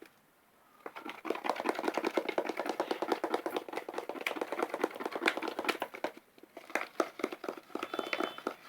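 Sticky slime being stirred and worked briskly, making fast, dense wet clicks and smacks. It pauses briefly about six seconds in, then carries on.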